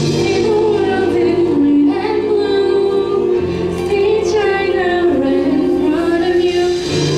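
A female soloist singing into a microphone in a pop choral arrangement, with choir voices and instrumental accompaniment underneath.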